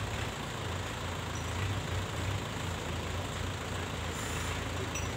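A heavy vehicle's engine idling steadily.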